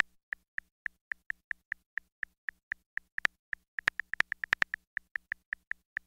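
iPhone on-screen keyboard clicks: the iOS key-press click sounding once for each letter typed, about four to five clicks a second, with a quicker run of clicks about four seconds in.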